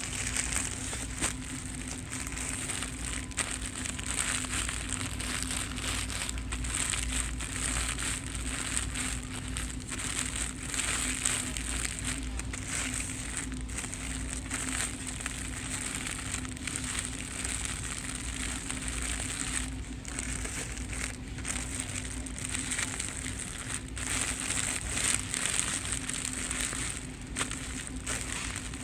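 Continuous crinkling and rustling of handled packaging with many small irregular crackles, over a steady electrical hum.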